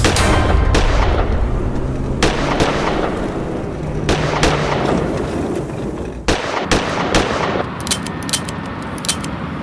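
A string of handgun gunshot sound effects, about a dozen sharp cracks at irregular spacing, several in quick succession near the end.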